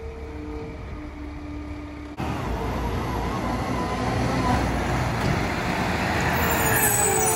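Peterbilt 520 garbage truck with a McNeilus ZR side-loader body, faint at first, then after a cut running closer and louder as it drives up. A whining tone falls in pitch near the end as the truck slows toward the bins.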